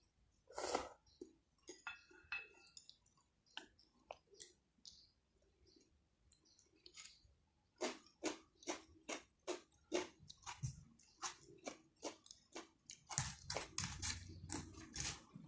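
Close-up mouth sounds of a person chewing food. It starts with scattered wet clicks, then settles into steady chewing at about three chews a second from about halfway, louder near the end.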